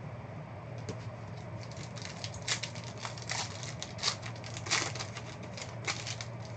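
Foil wrapper of a Panini football trading-card pack crinkling in the hands as the pack is opened: an uneven run of sharp crackles, loudest in the middle, over a steady low hum.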